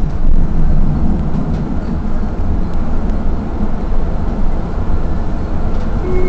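Duewag N8C tram running along its track, heard from on board as a steady rumble of wheels on rails and running gear. A steady tone comes in right at the end.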